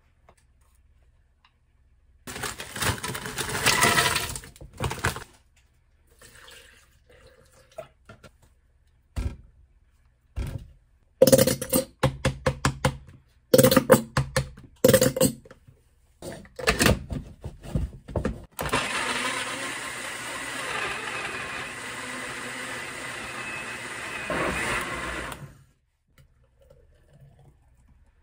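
Countertop blender running steadily for about seven seconds, blending milk, banana and blueberries into a smoothie, then cutting off. Before it come a run of sharp clacks and knocks from ingredients and the jug being handled; these are the loudest moments.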